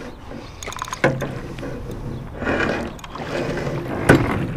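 Water splashing as a big channel catfish thrashes in a landing net beside the boat, with a few sharp knocks, the loudest about a second in and near the end.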